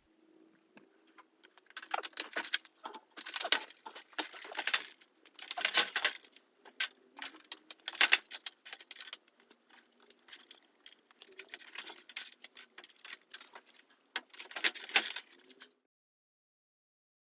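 Irregular clattering and scraping, a dense run of rattles and clicks in uneven bursts over a faint steady hum, that stops suddenly near the end.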